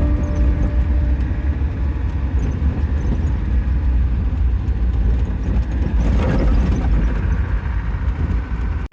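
Land Rover Defender driving, a steady low engine and road rumble, with a brief louder swell about six seconds in.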